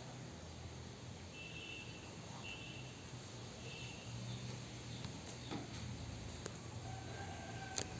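Faint background sound: three short high chirps in the first half over a low steady hum, then a couple of lower tones and light clicks near the end.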